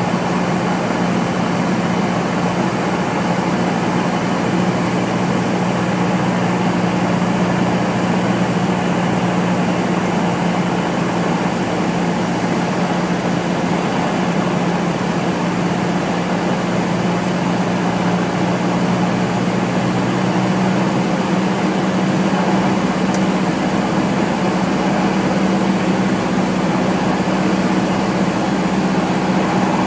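Cessna 172's piston engine and propeller droning steadily, heard inside the cockpit during a night approach.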